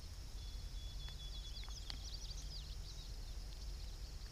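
Quiet outdoor ambience: a steady low rumble with a bird twittering in quick high chirps about halfway through.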